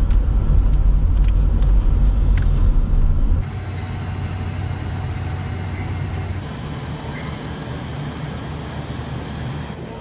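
Low, steady rumble of a Honda Vezel Hybrid driving slowly, heard inside the cabin. It cuts off abruptly about three and a half seconds in, giving way to a quieter, steady background hum.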